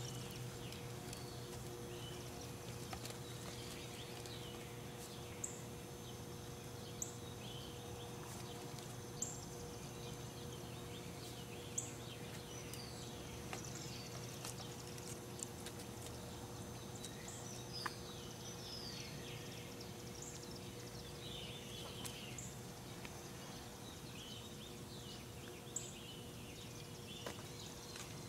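Quiet outdoor ambience: a steady low hum runs throughout, with scattered short, high chirps and a sharp tick every few seconds.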